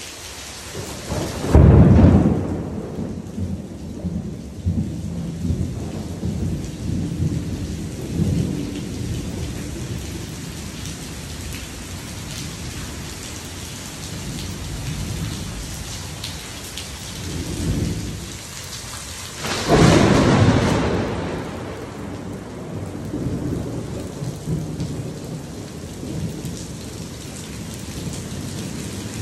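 Heavy rain falling steadily on a swimming pool and its concrete deck during a thunderstorm. Two loud thunderclaps strike, about two seconds in and again just before twenty seconds, each followed by several seconds of low rumbling.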